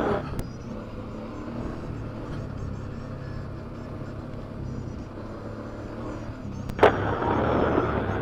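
ATV engine running steadily at trail speed, with tyre and trail noise. Near the end a sharp click, followed by a louder rush of noise.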